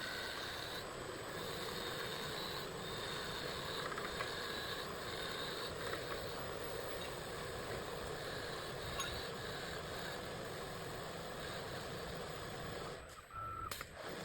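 Small CNC wood lathe running: steady spindle and machine noise, with a higher cutting sound that comes and goes as the tool works the wood. The sound drops out briefly about a second before the end.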